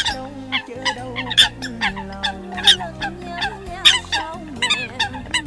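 Eurasian coot calls: short, sharp calls repeated rapidly, about three or four a second. Faint music with steady sustained notes runs underneath.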